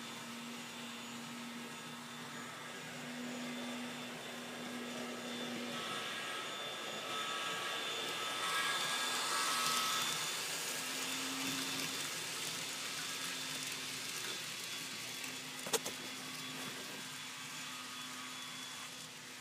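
N scale model freight train running on Kato Unitrack, its motor and wheels whirring. The sound swells as the train passes close, about halfway through, then fades, with one sharp click about three quarters of the way in.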